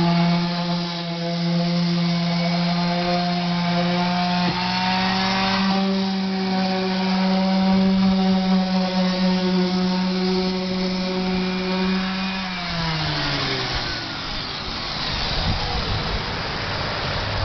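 Electric power sander running against the boat's fiberglass surface with a steady motor whine, which steps up slightly in pitch about four seconds in. Near the end the motor winds down, falling in pitch as it is switched off, leaving a rough noise.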